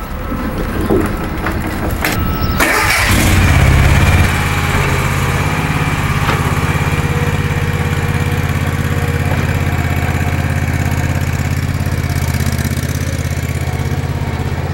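Bobcat commercial lawn mower engine cranking and catching a little under three seconds in, running louder for about a second, then settling into steady running.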